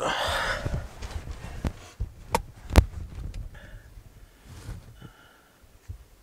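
Rustling and bumping close to the microphone as the camera is handled against clothing and bedding, with two sharp knocks about two and a half seconds in.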